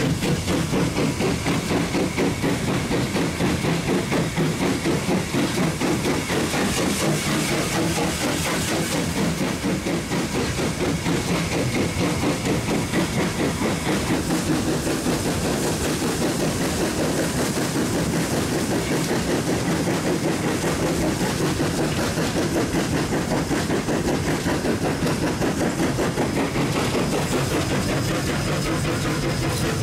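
Steam locomotive under way, heard from its footplate: regular exhaust beats over a steady hiss of steam and the rattle and clatter of the running engine on the rails.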